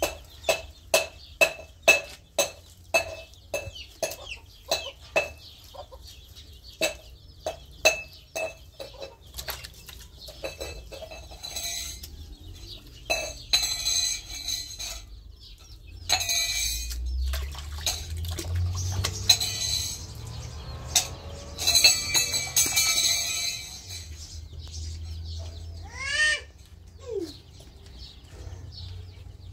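Chickens clucking: a steady run of short clucks, about two a second, through the first nine seconds, then scattered clucks and one short call bending up and down near the end. Rougher scraping and rustling noises come and go in the middle.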